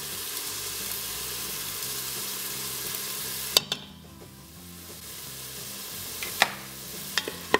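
Chopped red onions sizzling in hot oil in an Instant Pot's steel inner pot on sauté mode, a steady hiss. A sharp click about three and a half seconds in, after which the sizzle is quieter and slowly builds again, with a few light knocks near the end.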